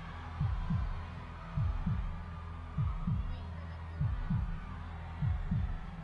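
Suspense heartbeat sound effect: a double low thump, lub-dub, repeating about every 1.2 seconds over a steady low drone, building tension before a winner is named.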